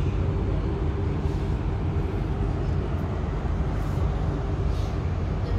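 Suburban passenger train running, heard from inside the carriage: a steady low rumble of wheels and running gear with a faint steady hum.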